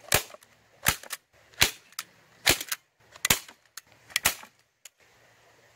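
Hand-squeezed staple gun driving staples through a squirrel hide into plywood: about six sharp snaps, one every second or less, some with a quick second click, stopping about five seconds in.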